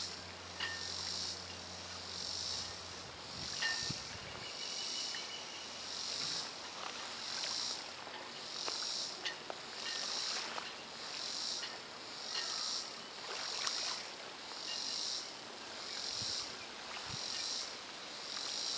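Insects buzzing in a steady rhythmic pulse, a bit more than one pulse a second, with scattered short chirps and clicks; a low steady hum stops about three seconds in.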